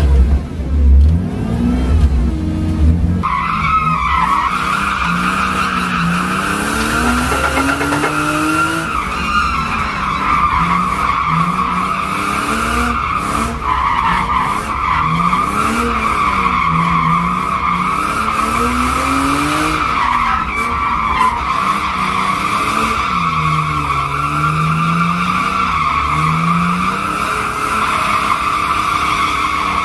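BMW E36 drifting: its engine revs rise and fall repeatedly while the tyres squeal continuously from about three seconds in, heard from inside the cabin.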